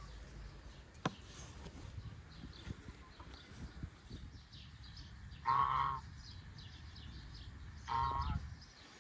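Domestic geese honking: two loud calls of about half a second each, the first a little past the middle and the second near the end.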